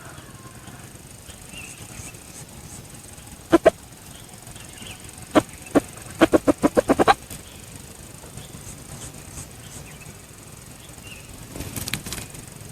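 A junglefowl flapping its wings in sharp claps: a couple of single beats, then a quick run of about eight beats in a second. A few faint chirps in the background.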